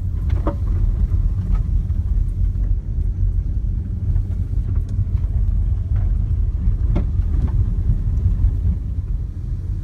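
Car driving slowly, heard from inside the cabin: a steady low rumble of engine and road noise, with a couple of faint ticks.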